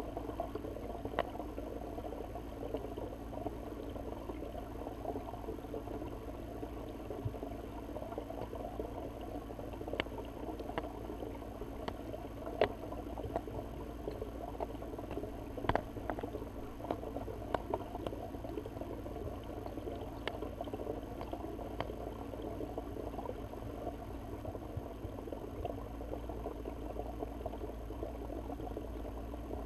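Muffled underwater ambience picked up by a submerged camera: a steady dull hiss with scattered sharp ticks, the loudest near the middle.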